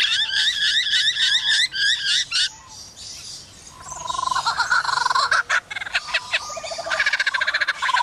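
Superb lyrebird singing: a fast run of repeated whistled notes, a short lull about three seconds in, then lower warbling notes with a few clicks, and fast repeated notes again near the end.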